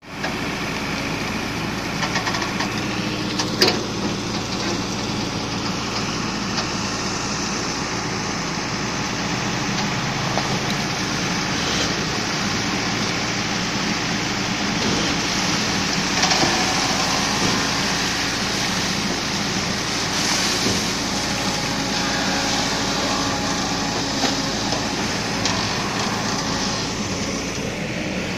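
JCB backhoe loader's diesel engine running steadily as the backhoe digs, with a single sharp knock a few seconds in.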